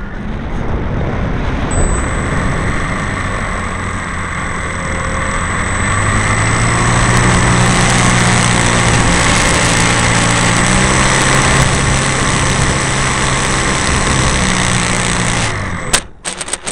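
Onboard recording of a radio-controlled Piper model plane's motor running steadily with a thin high whine, its tone swelling about six seconds in. Near the end the motor sound cuts off suddenly with a sharp knock, followed by scattered crackling knocks as the model rolls over rough ground on landing.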